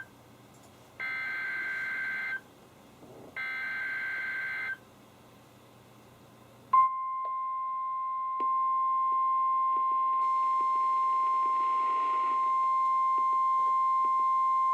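NOAA Weather Radio Specific Area Message Encoding (SAME) header: the second and third of three short bursts of buzzing data tones, about a second apart. About seven seconds in, the steady 1050 Hz warning alarm tone starts and holds, the signal that a warning follows. Around ten seconds in, fainter higher steady tones join it.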